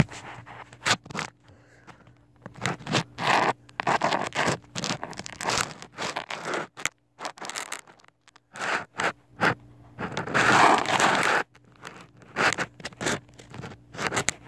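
Irregular scraping and rubbing as a handheld phone is moved about on the floor under a couch, the microphone brushing against the couch fabric, in uneven bursts with the longest and loudest a little after ten seconds in.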